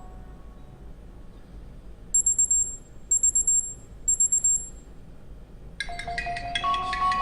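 HTC Desire 610 smartphone speaker playing ringtone previews: three short bursts of rapid, high-pitched beeps about a second apart. Near the end a new chiming ringtone melody starts.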